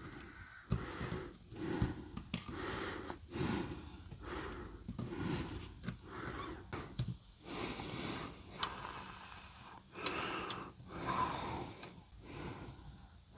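A person breathing close to the microphone, soft breaths every second or so, with a few sharp clicks in the second half.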